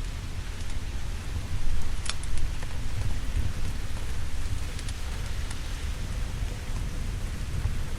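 Steady rainfall with a continuous low rumble underneath and a few sharp ticks, the clearest about two seconds in.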